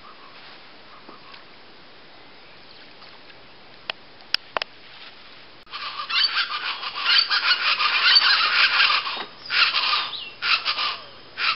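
A few faint sharp clicks over a low steady background. Then, about five and a half seconds in, many birds start calling loudly in fast repeated notes, rising and falling in waves.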